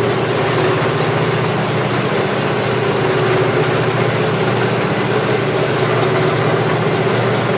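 MSC 7" x 12" horizontal band saw running steadily under power, its electric motor and belt-driven blade giving a continuous hum with a steady tone while the head lowers on its hydraulic down feed.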